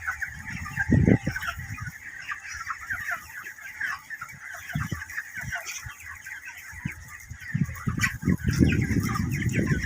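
A large flock of chicks in a poultry shed peeping continuously, many short high chirps overlapping, with a few low thumps about a second in and again near the end.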